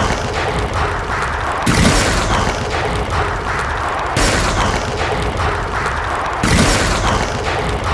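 Explosion sound effect: a continuous rumble with a fresh boom about every two and a half seconds, three times.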